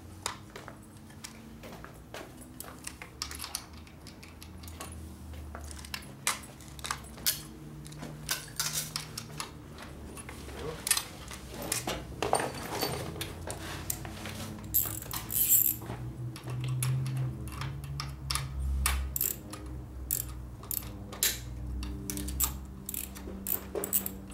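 Small metal hand tools clinking: sockets rattled in a socket set and a socket wrench working a nut on a motorcycle engine, with scattered sharp metallic clicks that come faster and closer together over the last few seconds.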